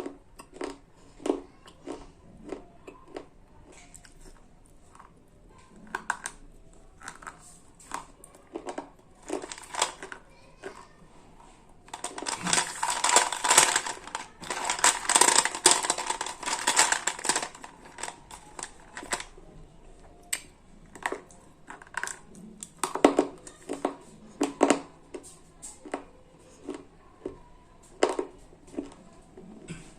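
Slate pencils being bitten and chewed: sharp crunches come about once or twice a second, with a dense run of rapid, loud crunching in the middle lasting about six seconds.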